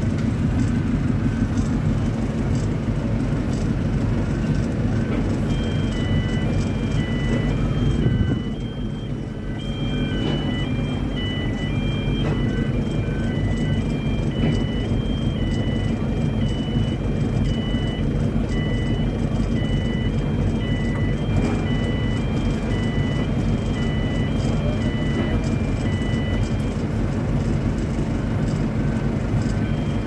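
Heavy construction machinery engine running steadily with a loud low rumble, dipping briefly about eight seconds in. From about six seconds in, a repeating electronic tune of high beeping notes plays over it.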